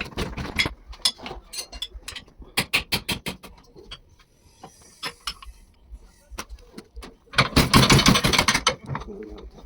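Tools and metal parts of a diesel injection pump clicking and knocking on a workbench, with a loud rapid rattle lasting about a second near the end.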